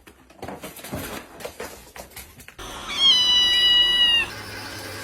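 A cat gives one long, high, steady meow of just over a second, about three seconds in. Before it there are faint light clicks and knocks.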